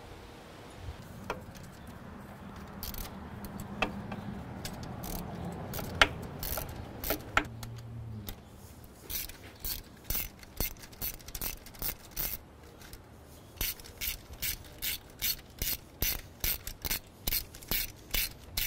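A hand ratchet clicking in short runs, about two a second, with a brief pause partway through, as it works a spark plug loose through an extension and spark plug socket. Before the clicking starts there is only a faint low hum and a few knocks of tool handling.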